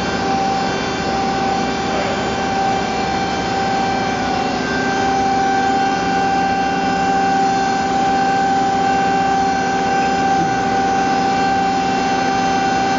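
Burgmaster Power Hawk CNC mill powered up and running, a steady machine whine made of several held tones, one higher tone joining about four seconds in.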